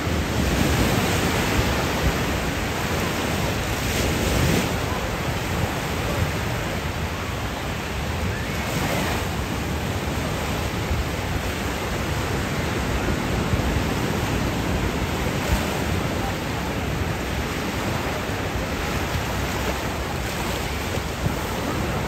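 Ocean surf breaking and washing up a sandy beach: a steady, even rushing.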